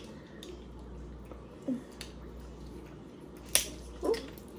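Quiet eating sounds with one sharp snap about three and a half seconds in and two brief low vocal sounds.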